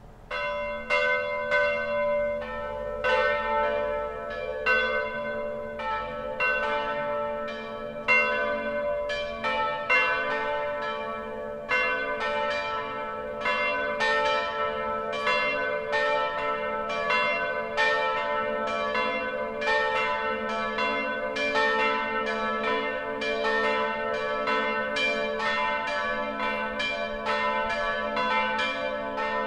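Three post-war bronze church bells from the Lera foundry, tuned to A, B and C sharp, swung together in a full peal (distesa). Their clappers strike in a dense, irregular, overlapping stream of strokes over a steady hum. The ringing starts suddenly about half a second in.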